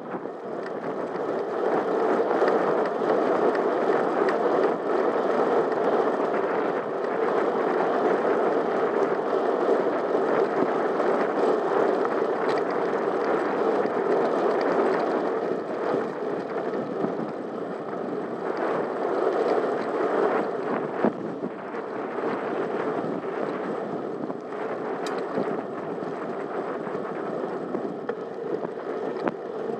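Steady rushing noise of a bicycle rolling along a tarmac lane: wind on the microphone mixed with tyre noise, with a few faint ticks. It eases slightly in the last third.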